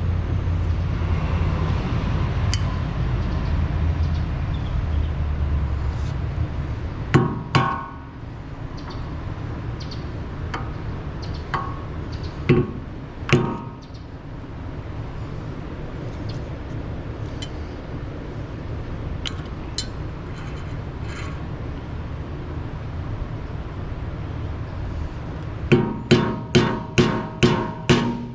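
Hammer striking a flathead screwdriver to work the cover off the rear wheel hub: sharp metal-on-metal blows that ring. There are a few scattered strikes, then a quick run of about seven, roughly three a second, near the end. A steady low rumble underlies the first several seconds.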